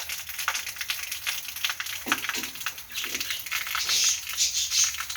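Heavy rain falling, a steady hiss with many fine drop ticks. A few faint short voice-like sounds come about two and three seconds in.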